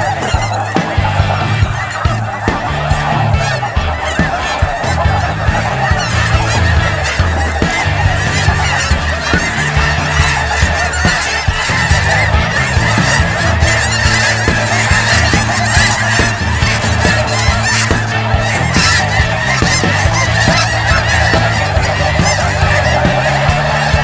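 A large flock of snow geese calling together: a dense, continuous chorus of overlapping honks with no let-up.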